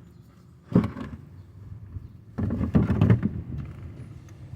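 A sharp knock about a second in, then a short run of clunks and rattles in the middle: parts and tools being handled during an oil-filter change on a van.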